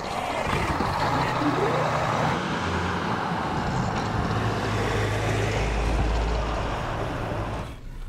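Car engine running under way, with road and tyre noise. The low rumble swells a little past the middle and falls away near the end.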